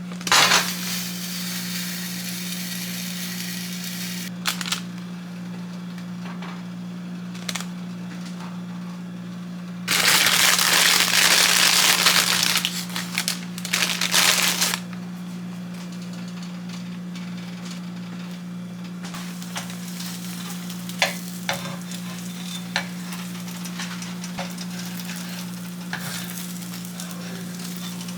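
Chicken frying in a pan, a steady sizzle with scattered crackling pops over a steady low hum. About ten seconds in the sizzle rises sharply for a few seconds, then settles back.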